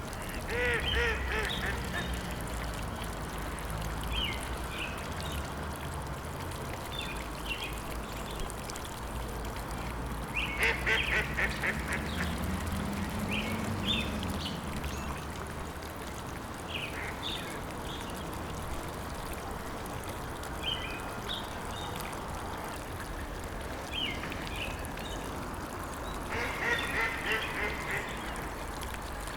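Ducks quacking in three quick runs: near the start, about a third of the way in and near the end. Short high chirps of other birds come between the runs, over a steady low background rush.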